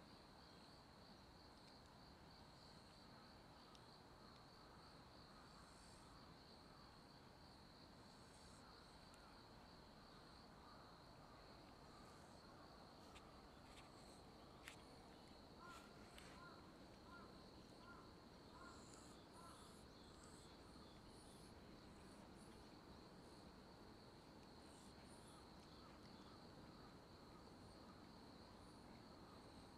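Near silence, with a faint, steady, high-pitched insect trill throughout and a short run of about six faint chirps about halfway through.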